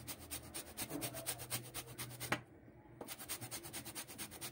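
Orange peel being rubbed over a metal hand grater, zesting into a bowl of flour: rapid, even rasping strokes, with a brief pause about two and a half seconds in before the grating resumes.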